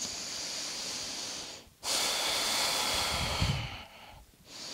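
A woman breathing slowly and audibly close to the microphone: one long breath, then a louder long breath about two seconds in, and a softer one starting near the end.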